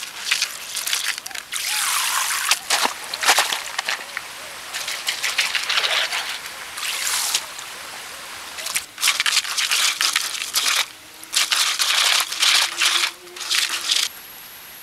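Water trickling and sloshing in irregular bursts, with a few short pauses.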